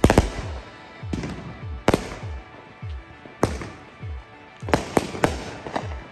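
Consumer fireworks launched from the street, firing shells one after another: about eight sharp bangs at irregular intervals, with a crackling wash between them.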